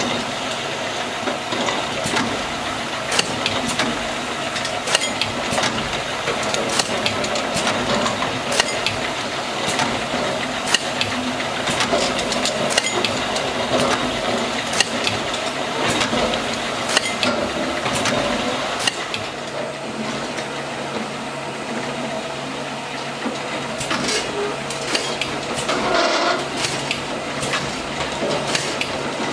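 ADR LAB8501 deposit-label labelling machine running: its conveyor and drives make a steady mechanical hum, broken by frequent irregular clicks and knocks of aluminium cans bumping along the conveyor and past the labelling head.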